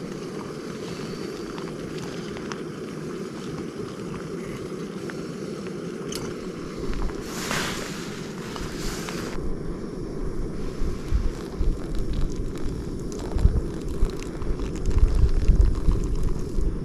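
Wind rumbling on the microphone, with a louder hiss for about two seconds near the middle and stronger low buffeting gusts in the second half.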